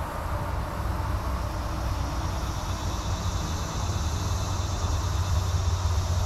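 Steady low rumble, with a high, even insect drone setting in about two seconds in.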